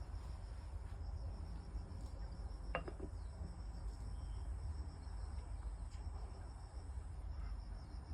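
Insects chirping steadily in a rapid, even pulse over a low rumble, with a single light knock about three seconds in.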